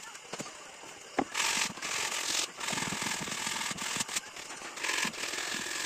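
Sandpaper rubbed by hand over the wood of a stool in repeated rasping strokes, with one sharp knock about a second in.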